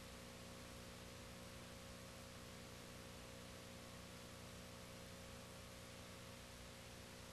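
Near silence: a steady faint hiss with a low electrical hum, the noise floor of a silent home movie's transfer.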